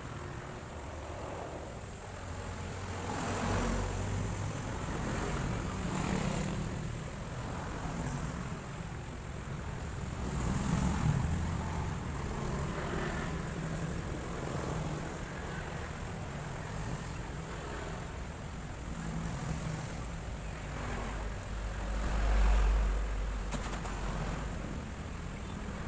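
Road traffic going by: a steady rumble of vehicles that swells as each one passes, loudest about 11 and 22 seconds in.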